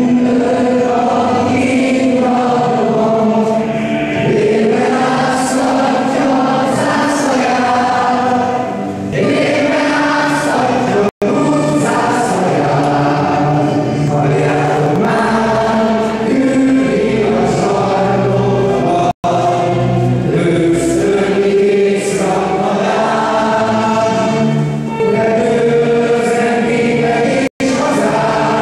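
Choral music: a song sung by many voices together, steady and continuous, cutting out for an instant three times.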